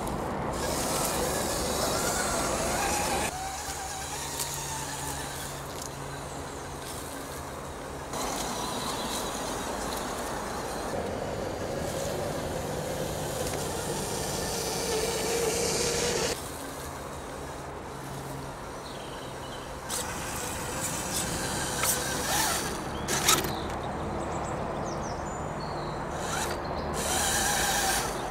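Axial Honcho RC crawler's 35-turn brushed electric motor and gears whining steadily at low crawling speed over rock, heard in several short clips with abrupt changes between them. About two-thirds of the way through come a few sharp knocks of the tyres and chassis on stone.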